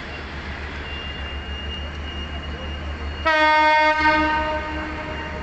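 Diesel locomotive horn sounding about three seconds in: one loud blast of under a second, then a brief second note that fades out. Beneath it runs the steady rumble of the passenger train rolling along, with a thin high steady tone.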